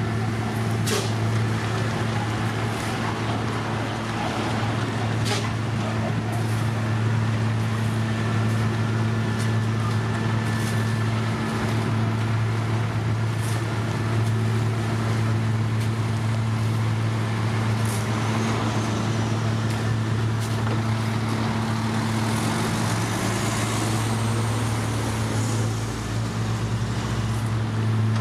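Heavy diesel engines of a road paver and the dump truck feeding it gravel, running at a steady speed in a constant low drone. A few scattered clicks and rattles come through it.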